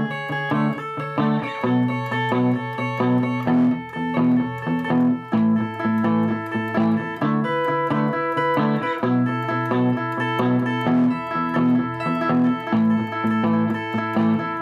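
Electric guitar, a Fender Stratocaster, playing a clean melodic arrangement of chord tones high on the first and second strings in A major, over a looped palm-muted rhythm guitar backing that repeats steadily underneath.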